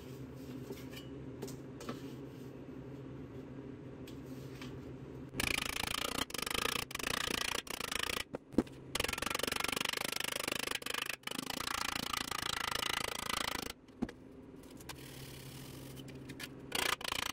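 Rim of a Rostyle wheel cover scraping and rubbing against a hammer head held as an improvised English wheel, a steady scratchy metal-on-metal sound. It starts about five seconds in, breaks off several times, drops back to a low hum for a few seconds and returns near the end.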